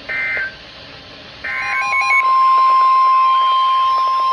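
NOAA Weather Radio Emergency Alert System signal. A short, buzzy burst of SAME digital data tones plays at the start, and another about a second and a half in. Right after the second burst the steady single-pitch 1050 Hz weather radio warning alarm tone begins and holds on.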